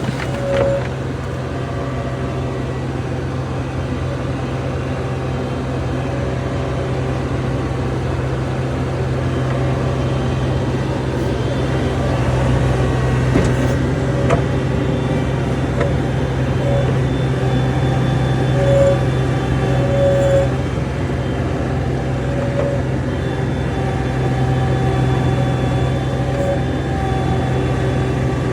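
John Deere 250 skid steer's diesel engine running steadily, with a strong low hum, heard from aboard the machine; its level swells a little twice. A few short higher tones and a couple of light knocks sit on top.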